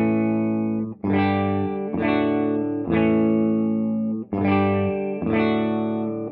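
Electric guitar (a Les Paul-type with humbuckers) played through a valve amp built on the brownface Fender Bassman normal-channel circuit, with no cathode bypass capacitor on the first preamp stage, fixed-bias output and negative feedback on. Six chords are strummed, each left to ring about a second with a short break between. The unbypassed first stage has less gain, so the volume is lower and the response snappier and slightly cleaner.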